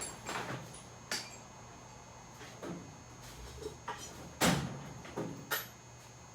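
A series of irregular knocks and clinks from hand tools and metal parts being handled, seven or so in all, the loudest about four and a half seconds in.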